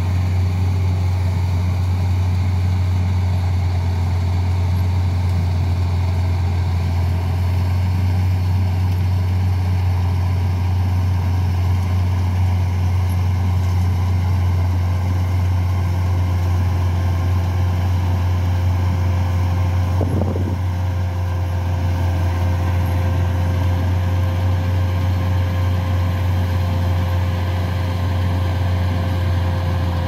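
Laverda Fiatagri 3650 combine harvester running steadily while cutting and threshing wheat: a constant deep drone, with a thin steady whine that grows stronger about two-thirds of the way through.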